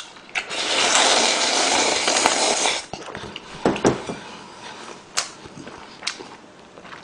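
A person slurping ramen broth from a bowl held to the mouth for about two seconds, then chewing, with a few light clicks.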